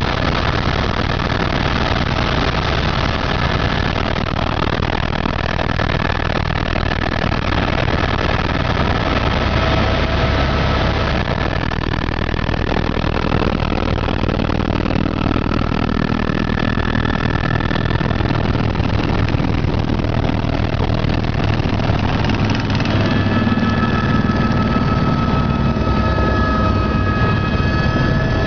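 Helicopter running steadily: the thump of the rotor under a turbine whine that shifts in pitch a few times.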